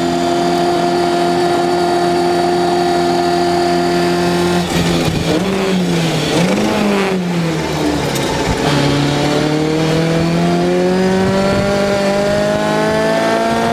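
Race car engine heard on board at high revs, cut off about four and a half seconds in as the car slows, with a few quick rises and falls in revs while it is shifted down. From about nine seconds in the revs climb steadily as it accelerates again.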